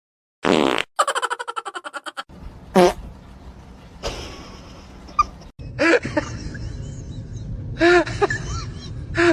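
A short burst and then a rapid buzzing rattle lasting about a second, fart-like, followed by several short squeaky chirps that rise and fall in pitch.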